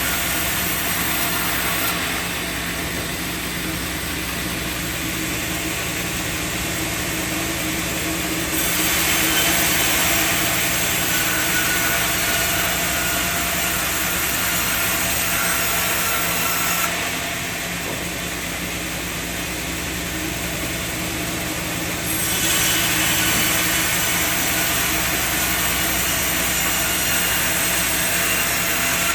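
Sawmill machinery running steadily, a constant mechanical hum with a hiss over it, shifting abruptly to a louder, hissier sound and back several times.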